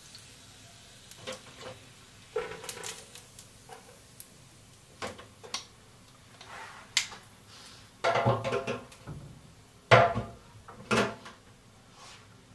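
Kitchen clatter of dishes and utensils being handled and set down: scattered light clicks, a busier stretch of clatter past the middle, and two sharp knocks near the end.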